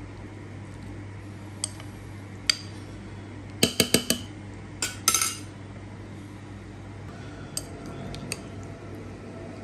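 Metal spoon clinking against a bowl while stirring and scooping raw fish in vinegar: scattered light clinks, with a quick run of four about three and a half seconds in, over a steady low hum.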